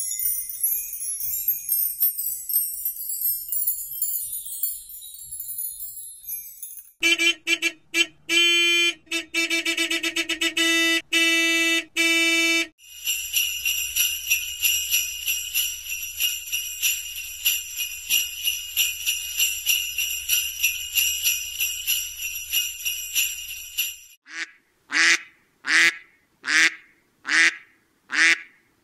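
Wind chimes tinkling for about the first seven seconds, then about six seconds of short pitched tones. Sleigh bells then jingle steadily for about eleven seconds, and near the end a duck quacks repeatedly, a little faster than once a second.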